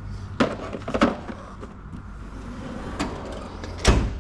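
Steel toolbox drawer and its contents being handled: several sharp clacks, then a heavier clunk near the end, typical of a tool chest drawer sliding shut.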